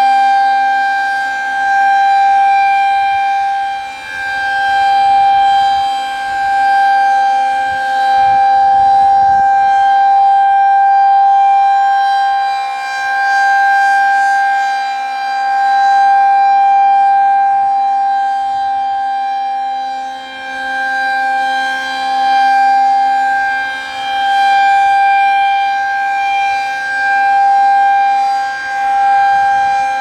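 Federal Signal 2001-SRNB single-tone chopper siren sounding a steady Alert tone. Its pitch holds level while the loudness swells and dips every few seconds as the rotating horn sweeps round.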